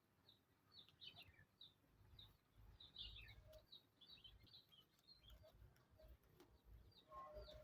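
Faint bird chirping: a steady string of short, falling chirps, about two or three a second.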